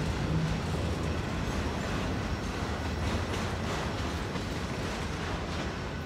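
Freight train of autorack cars rolling past on the rails: a steady rumble of wheels and cars with faint clicks, easing off as the last car draws away.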